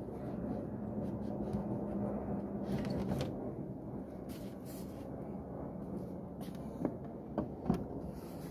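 Hardwood deck panel being lifted off its framing and handled: light rubbing and clicks of wood, then three short sharp knocks about seven seconds in as it is set down.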